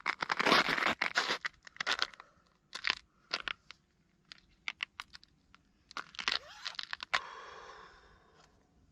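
A series of crunches, loudest and densest in the first two seconds, then thinning into scattered sharp clicks and crackles, with a short burst of crunching near the end that fades away.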